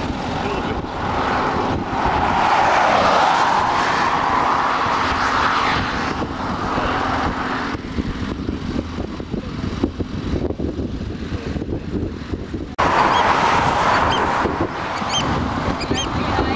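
Road and wind noise of a car driving at highway speed, heard from the moving car. A whoosh swells and fades over the first six seconds, and the noise jumps abruptly about eight and thirteen seconds in.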